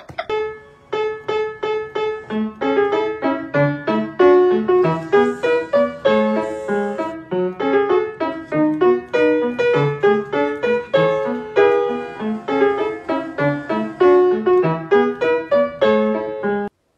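Background piano music: a light tune of quick, evenly paced struck notes. It cuts off suddenly near the end.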